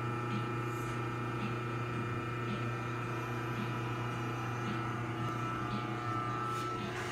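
Steady hum of running machinery, with a faint pulse repeating about once a second.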